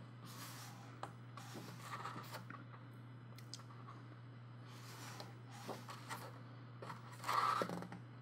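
Paper pages of a softcover coloring book turned by hand: a few soft rustles and flaps, the loudest near the end. A faint steady low hum runs underneath.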